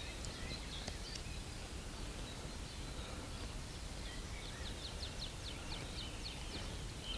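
Quiet outdoor pond ambience with small birds chirping. About five seconds in there is a quick run of roughly ten short chirps.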